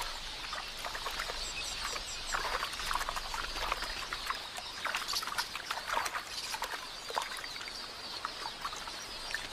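Water splashing and pattering with a flock of queleas chirping, as helmeted terrapins seize a bird at the water's edge and crowd in on it.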